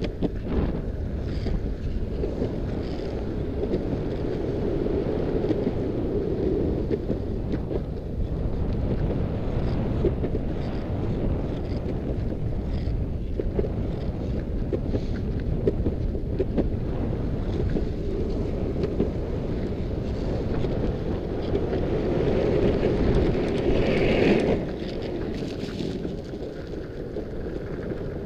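Wind buffeting the microphone over the rumble of longboard wheels rolling on an asphalt path during a downhill run. The noise swells near the end, then drops off sharply as the run ends.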